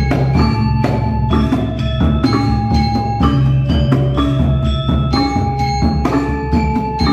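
Gamelan ensemble playing: bronze metallophones struck in a steady pulse, each note ringing on, over a low sustained tone.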